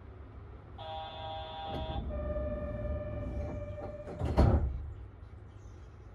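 Departure signal of a Yurikamome automated train: an electronic chime tone for about a second, then a slightly lower steady tone for about a second and a half. About four seconds in, the train's sliding doors shut with a loud thud, over a steady low hum from the train.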